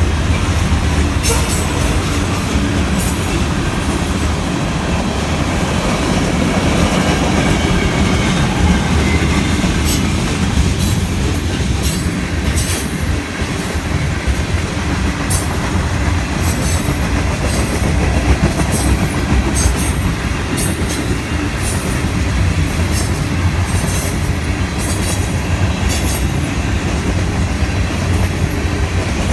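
Freight train cars, mostly tank cars, rolling past at steady speed: a continuous low rumble of steel wheels on rail, broken by irregular sharp clicks and brief squeals from the wheels.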